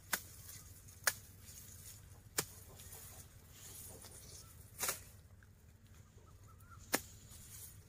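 A knife chopping through Napier grass stalks: five sharp cutting strokes, irregularly spaced one to two and a half seconds apart.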